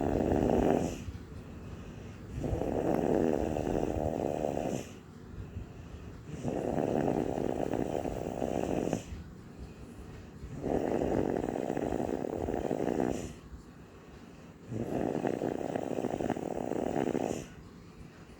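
Steady, regular snoring from a sleeper: a long snore of about two and a half seconds roughly every four seconds, four full snores in all, with quieter breathing between them.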